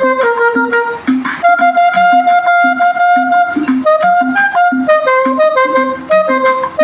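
Saxophone playing a slow hymn melody over a backing track with a steady beat, holding one long note in the middle.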